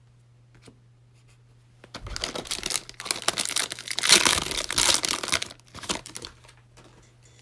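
Cellophane wrapper of a trading-card pack crinkling and tearing open, a dense crackle that starts about two seconds in and lasts about four seconds.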